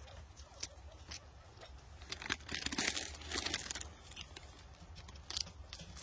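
Fresh green leaf being torn into small pieces by hand: a crinkly tearing and rustling about two seconds in that lasts over a second, among scattered small snaps and clicks.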